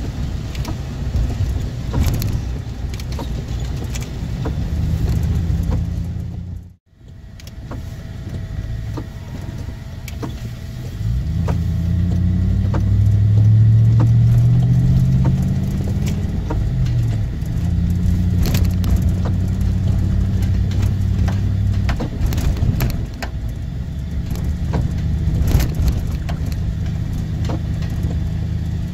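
Car engine and tyre noise heard from inside the cabin while driving on wet streets, with scattered small ticks. About halfway through, the engine note rises in steps and grows louder as the car speeds up, then settles to a steady cruise. The sound drops out for a moment about seven seconds in.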